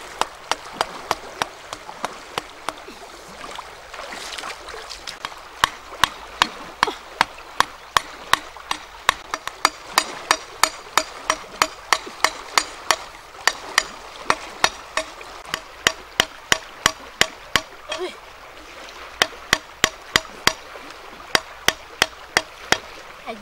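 Rapid, evenly spaced sharp strikes, about three a second, with a couple of short pauses, over the steady sound of running water.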